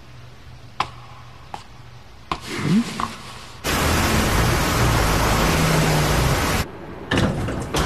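Heavy rain, a loud, even hiss that comes in suddenly about three and a half seconds in and cuts off about three seconds later. Before it, only a faint hum with a few soft clicks.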